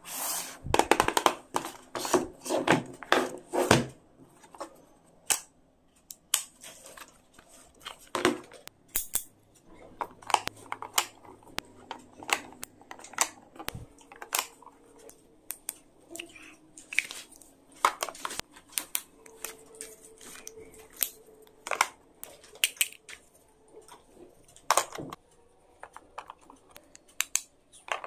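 Plastic clicks and taps of pencils, erasers and small stationery being set down in a plastic pencil case, with a dense run of louder handling clatter in the first four seconds, then scattered single clicks.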